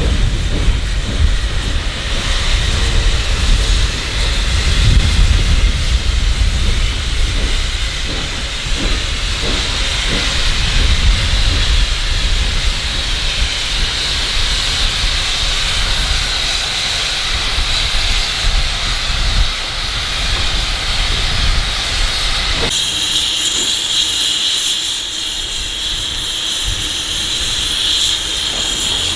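Narrow-gauge K-28 steam locomotive No. 473 rolling, a steady steam hiss over the low rumble of its running gear. About two-thirds of the way through, the rumble stops abruptly and only the hiss of the standing locomotive's steam remains.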